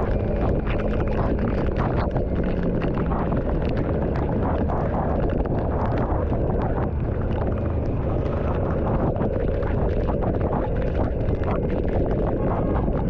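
Steady low wind rumble on the microphone while travelling through rain, with many short sharp taps scattered throughout as raindrops strike.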